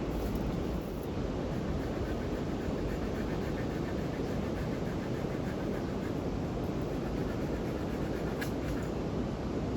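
Campfire burning with a steady low rushing noise and one sharp pop of the burning wood near the end.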